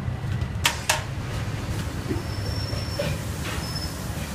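Aluminium lid scraping as it is slid off a large pot of dum-cooked biryani, with two sharp metal clinks about a second in, over a steady low rumble.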